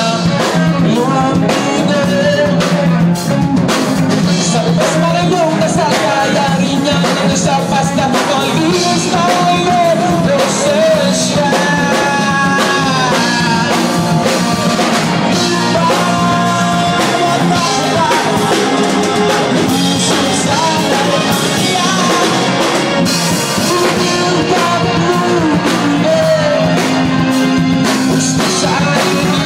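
Live rock band playing a song: a singer's voice over a drum kit, keyboard and guitar.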